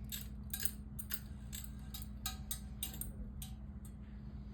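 Panama ceiling fan running with a single blade: a steady motor hum with light, irregular ticking, about two or three clicks a second.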